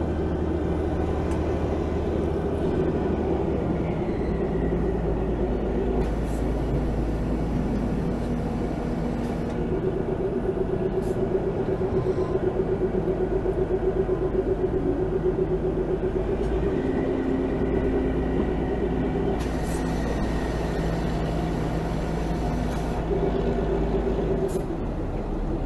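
Narrow-gauge train running steadily: the droning engine of the ZDM-3 diesel-hydraulic locomotive hauling it, mixed with the noise of the coach's wheels on the rails.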